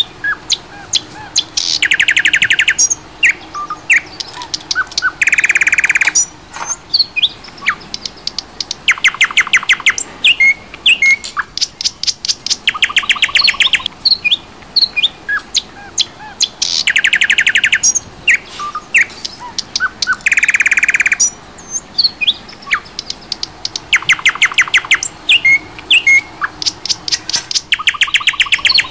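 Birdsong recording of rapid chirping trills and short whistled notes. It repeats about every fifteen seconds, so it is a looped soundtrack rather than birds singing live.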